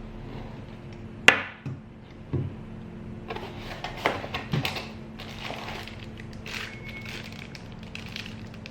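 Hand-handling sounds while unboxing: a few sharp plastic clicks and knocks, the loudest about a second in, then light rustling and crinkling of packaging, over a steady low electrical hum.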